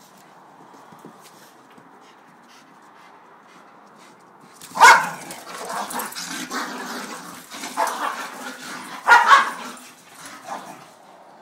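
A Pembroke Welsh corgi and a beagle mix play-fighting. It is quiet at first, then about halfway through comes a sharp bark, a few seconds of rough growling, another loud bark, and a couple of smaller yips near the end.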